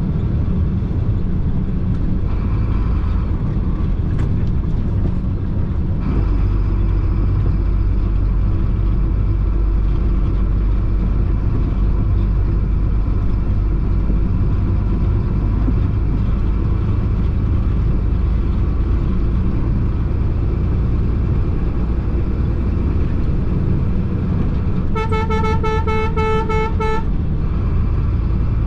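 Chenglong concrete mixer truck's diesel engine running steadily under way, its low rumble growing stronger about six seconds in. Near the end a vehicle horn sounds for about two seconds with a fast pulsing tone.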